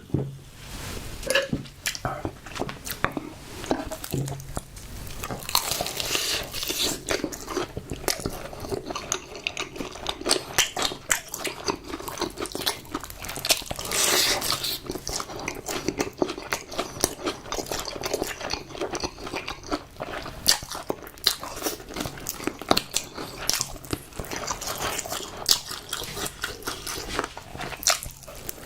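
Close-up crunching and chewing of crispy fried chicken: bites and rapid crisp crackles, louder for a moment about halfway through.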